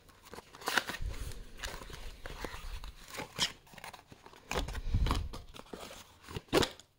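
Hands unpacking a cardboard perfume box: irregular clicks, scrapes and crinkles of the packaging, with a couple of dull bumps as it is handled.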